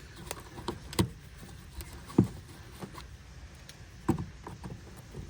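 Scattered small clicks and knocks of a pick tool prying plastic push clips out of a plastic wheel-well shield, the sharpest knock about two seconds in.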